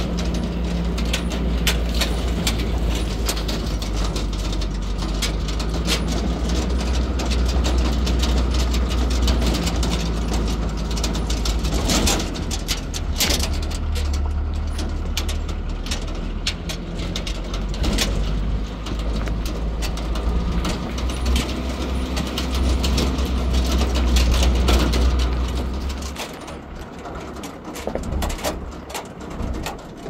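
An engine running steadily, a low rumble with a dense scatter of rattling clicks over it, dropping away about four seconds before the end.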